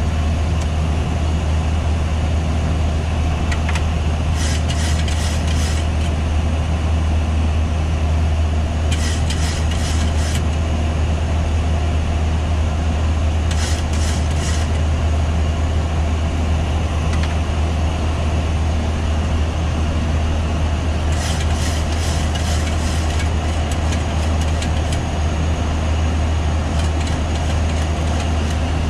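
Steady low drone of airflow and engine noise on the flight deck of a Boeing 737-800 in flight. A few short bursts of high hiss come and go every few seconds.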